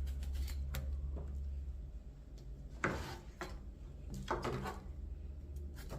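A knife cutting into a whole pineapple on a cutting board: a few short crunching, scraping cuts, the loudest about three seconds in and another around four and a half seconds, over a steady low hum.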